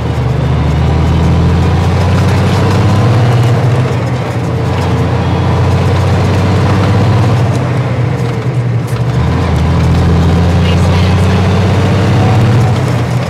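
Kenworth W900A truck's Cummins diesel engine running under way, heard from inside the cab as a loud, steady low drone. Its note changes about nine seconds in.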